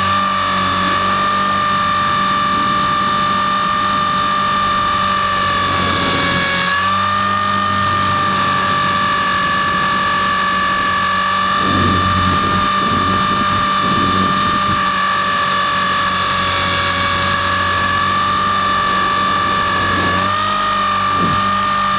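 Brushless electric motor and drive gears of a 450-size RC helicopter (a T-Rex 450 clone) whining at a steady high pitch, heard from a camera on the helicopter itself. The pitch sags briefly twice as the load changes, and low wind rumbles hit the microphone now and then.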